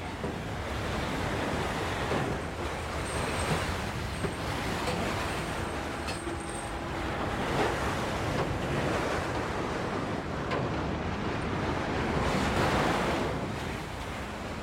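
The continuous rushing noise of a burning oil well's jet of flame, mixed with the running engine of a nearby bulldozer, swelling louder and softer in slow waves.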